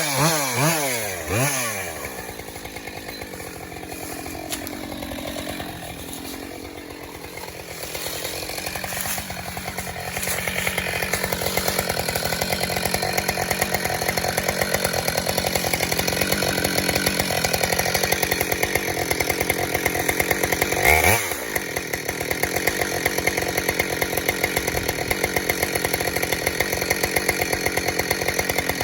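Husqvarna chainsaw revved up and down several times, then running steadily at high speed through a cut in wood, with one brief rev and drop partway through.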